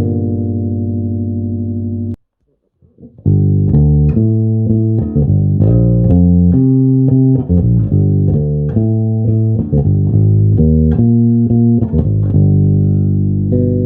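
Electric bass guitar: a held note that cuts off about two seconds in, a second of silence, then a fast run of plucked notes, several a second, settling into longer held notes near the end.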